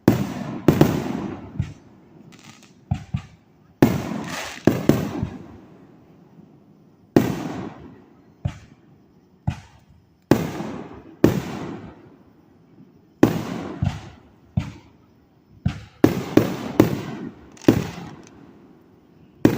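Fireworks going off: about twenty sharp bangs at irregular intervals, some in quick pairs, each trailing off in a fading rumble.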